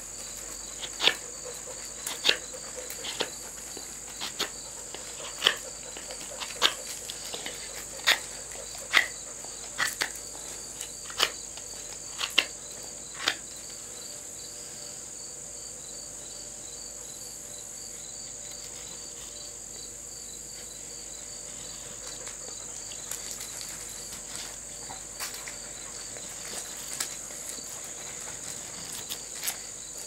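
Short, sharp knife strokes shaving curls off a wooden stick with a homemade folding knife whose blade was made from a file. About a dozen strokes come roughly once a second, then stop; a few fainter ones follow later. A steady high drone of insects runs underneath.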